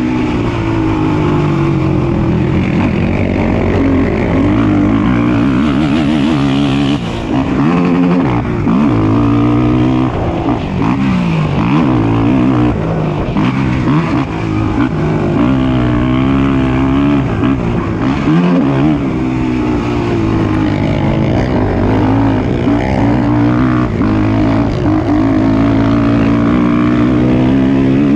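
ATV engines racing on a motocross track, revving up and falling back again and again as the quads accelerate and shift, with the engine sounds overlapping.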